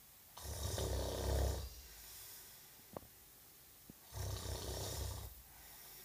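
Snoring: two loud snores, each a little over a second long and about three and a half seconds apart, with a couple of faint clicks between them.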